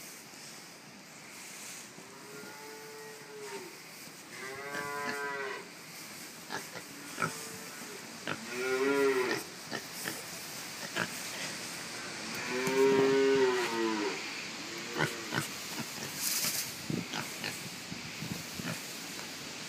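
Berkshire-Tamworth cross piglets calling from under a pile of hay: about four drawn-out squeals of a second or so, each rising and falling in pitch, the loudest about two-thirds of the way through, with a few shorter calls and hay rustling and crackling between them.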